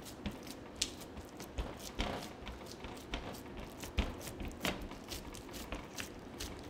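Hands pressing and patting a raw ground-chicken and cheese crust mixture flat on a metal pizza pan: soft squishing with irregular light taps and clicks, a few sharper ones about a second, two seconds and four seconds in.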